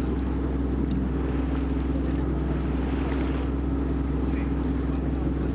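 Boat engine running steadily, a low, even hum.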